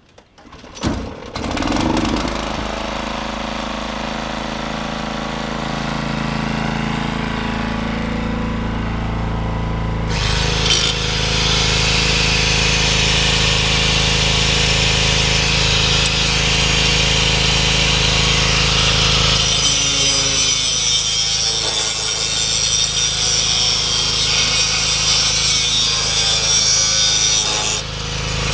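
An electric grinder starts up about a second in and runs steadily, then grinds steel from about ten seconds in as a lawn mower blade is sharpened, with a brief dip near the end.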